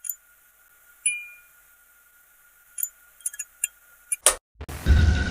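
A run of short, glassy ticks and clinks, each ringing briefly, over a faint steady high tone. Near the end comes a short burst of noise, then loud electronic music with a heavy beat starts, like an intro sting.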